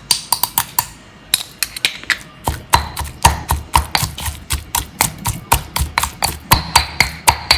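Pestle pounding a spice paste in a mortar: sharp ringing knocks, a few at first, then a steady beat of about four strokes a second with heavier thuds.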